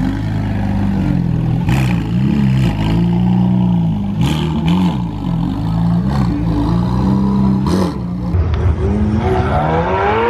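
Car engines revving at a car meet: the pitch rises and falls again and again with each blip of the throttle, with a few sharp cracks in between. Near the end one engine climbs steadily in pitch as it accelerates.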